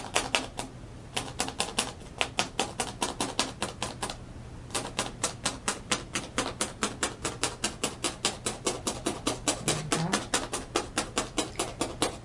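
Felting needle stabbed rapidly and repeatedly through wool roving into the paper backing to tack the fibres down. It makes a fast run of sharp ticks, about five a second, with two short pauses near the start.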